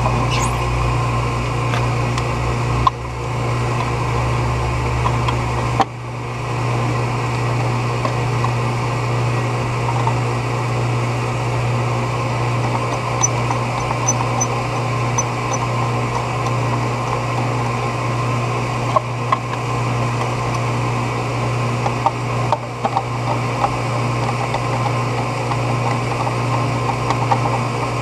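Electric pool pump motor running with a steady low electrical hum. A few light clicks and knocks come from the motor's plastic back cover being fitted with a screwdriver.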